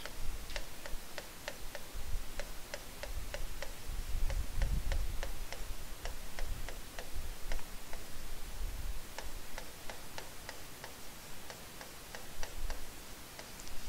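A plastic pen stylus tapping and clicking on a tablet screen while writing a row of numbers: many short, sharp ticks at an uneven pace of about two to four a second, over a faint low rumble.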